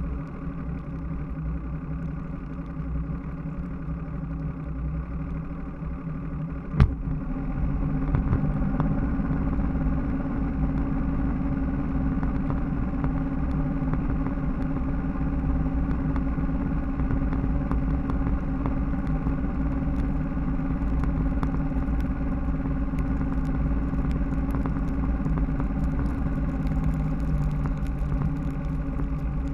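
Bass boat's outboard motor running slowly, a sharp click about seven seconds in, then the engine comes up to a louder steady run as the boat gets under way, with wind and spray noise growing over it.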